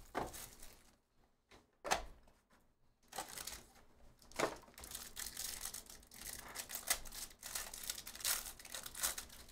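Clear plastic trading-card pack wrapper crinkling and tearing as it is ripped open by hand, after a single sharp tap about two seconds in.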